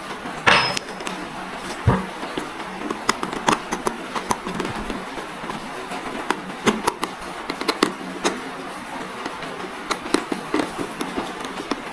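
Irregular clicks, taps and knocks of a full-face motorcycle helmet and its parts being handled as a piece is pulled out of it, with a louder scrape about half a second in and a sharp knock about two seconds in.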